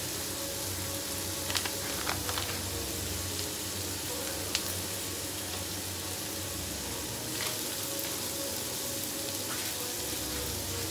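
Garlic and onions sautéing in hot oil in a frying pan: a steady sizzle, under a steady low hum, broken by a few short clicks as ingredients are added.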